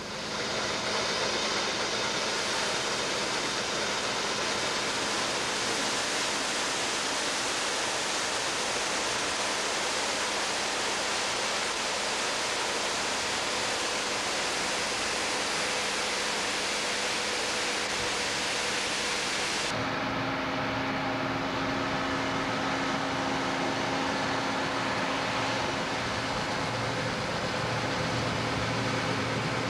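Steady running noise of harvest machinery, a grain truck and combines. For the first two-thirds it is a steady rushing noise. About two-thirds in it switches abruptly to a lower, steady engine hum with a few held tones.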